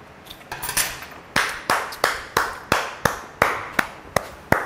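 Hands clapping in a steady rhythm, about three claps a second, a dozen or so in all.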